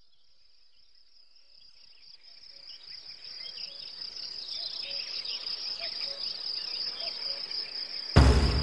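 A steady, high-pitched insect chorus fades in and grows louder, with a few faint chirps mixed in. Music starts abruptly near the end.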